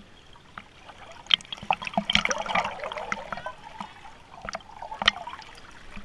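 River water splashing and trickling close to a microphone at the water's surface, with scattered sharp splashes and knocks, busiest a couple of seconds in.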